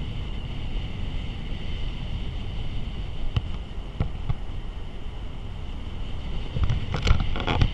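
A car driving on a paved road, its road and tyre noise mixed with wind rushing over an exterior-mounted microphone, under a steady high-pitched hiss. A few sharp knocks come near the end.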